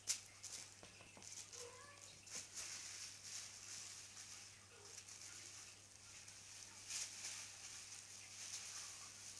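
Faint crinkling and rustling of a thin plastic bag as kittens scramble and wrestle on it, with small ticks and taps from paws on the hard floor.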